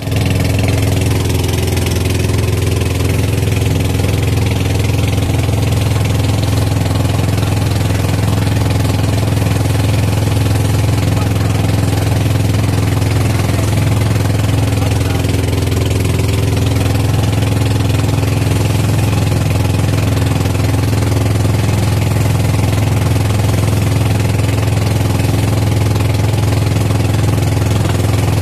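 Engine of a motorized outrigger boat (bangka) running steadily under way, a constant low drone, with the hiss of water rushing and spraying along the hull and outrigger floats.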